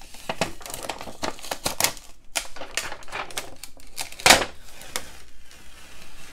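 Clear adhesive tape being peeled off the cases of two UPS batteries, giving a fast run of short crackling rips. There is one loud knock about four seconds in.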